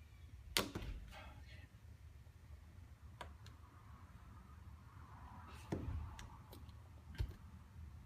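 A handful of sharp clicks and knocks as a smartphone and small repair tools are handled on a workbench, with a steady low hum underneath. The loudest knocks come about half a second in and near six seconds.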